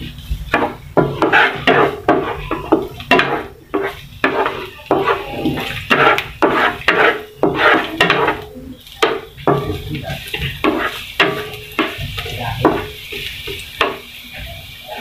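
A spatula scraping and knocking against a nonstick frying pan while stirring garlic and onion in oil, in a rapid, irregular run of scrapes and taps.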